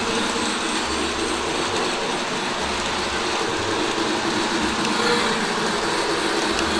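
O gauge Polar Express model steam train running laps around a loop of track, its motor and wheels on the rails making a steady running noise.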